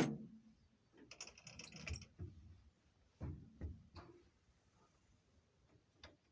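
Small metal tools and parts being handled at a workbench: a short rattle about a second in, then a few light knocks and clicks.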